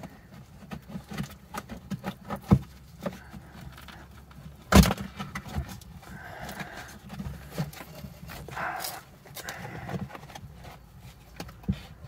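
Scattered light knocks, clicks and soft rustles of hands and a phone working against a car's steel frame rail and a foam block wrapped in metal foil tape, with one sharp knock about five seconds in.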